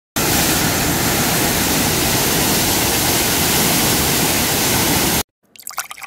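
Waterfall rushing over a rock ledge: a steady, dense roar of falling water. It cuts off abruptly about five seconds in, and a few faint ticks follow near the end.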